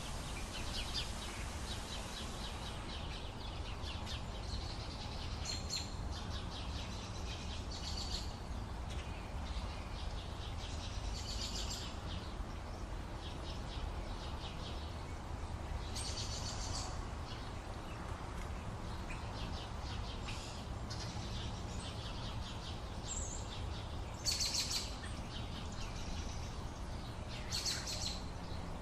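Wild birds chirping and calling in scattered short bursts, over a steady low background rumble.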